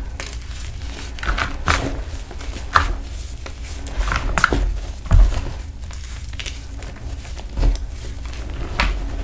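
Fingers raking, squeezing and crumbling crushed 'mute' gym chalk, a soft gritty scraping with irregular short crunches, several a second at times.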